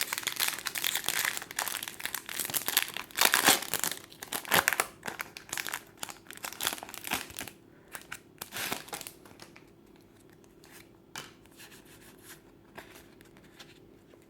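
A foil booster-pack wrapper crinkling and tearing open, loudest about three seconds in. The crinkling thins out after about seven seconds, leaving only a few faint rustles near the end.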